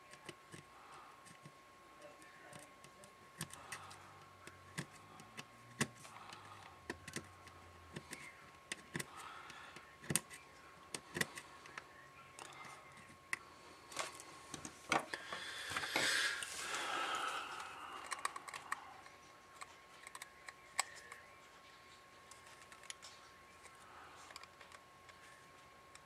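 Small hand tools, a screwdriver and needle-nose pliers, clicking and tapping against the plastic and metal knob fittings on top of a Baofeng UV-5R handheld radio, irregularly, with a longer rustling scrape about two-thirds of the way through.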